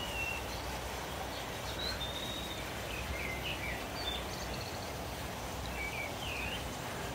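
Steady splashing of a small waterfall spilling into a koi pond, with short bird chirps over it several times.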